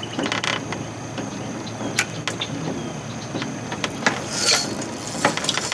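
Fishing reel ratcheting in irregular clicks as a hooked fish pulls line against a loose drag.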